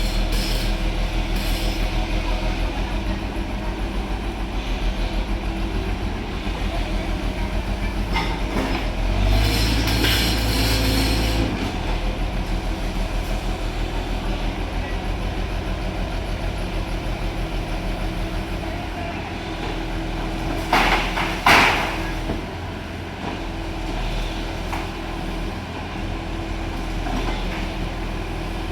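JCB 3DX backhoe loader's diesel engine running steadily with a low pulsing rumble, working harder for a couple of seconds about a third of the way in. Two sharp knocks sound close together about three-quarters of the way through.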